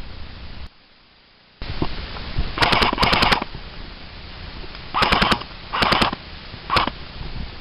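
Airsoft electric gun firing rapid full-auto bursts of sharp clicks: a longer burst, two short bursts, then a single shot near the end.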